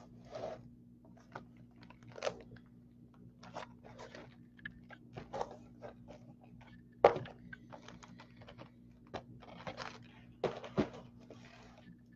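Sealed cardboard trading-card hobby boxes being shifted, slid and restacked by hand: scattered rustles and scrapes, with sharper knocks as boxes are set down, two of them about seven and eleven seconds in.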